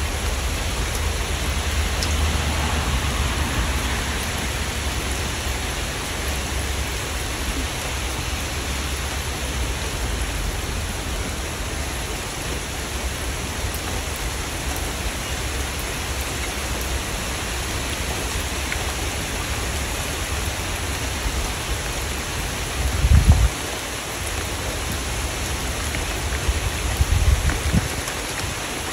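Steady rain falling, an even hiss with a low rumble underneath. Two short, louder low rumbles stand out, one about four-fifths of the way in and one near the end.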